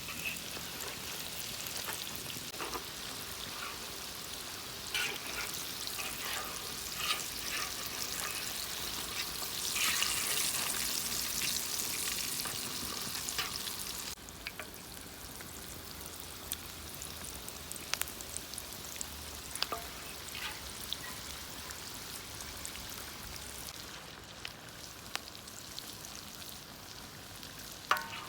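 Chicken drumsticks frying in hot oil: a steady sizzle with scattered pops and clicks, dropping a little in level about halfway through.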